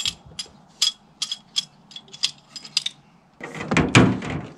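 Sharp metallic clicks, two or three a second, of hand tools and metal fittings as a hose fitting on a fuel transfer pump is tightened. About three and a half seconds in comes a louder, rougher clatter lasting about a second.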